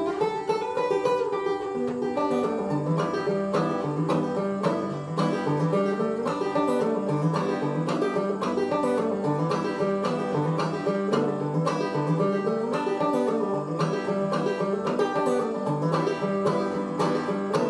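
Open-back banjo played clawhammer style: a steady, driving old-time tune of evenly paced plucked notes with a repeating melody.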